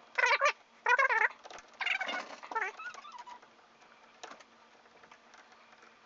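A cat meowing four times in quick succession, short wavering calls, followed by a single click a little after four seconds in.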